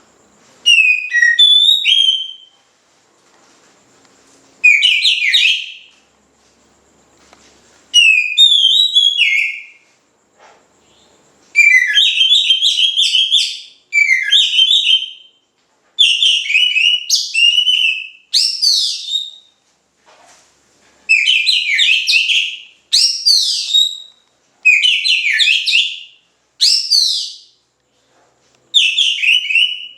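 Oriental magpie-robin (kacer) singing loudly and incessantly: a string of short, loud whistled phrases, each one to two seconds long with brief pauses between, with sweeping and trilling notes.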